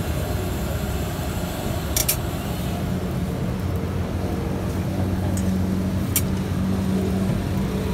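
Steady low rumble of street traffic, with a few sharp clicks of a steel spatula on a flat steel griddle: two close together about two seconds in and one about six seconds in.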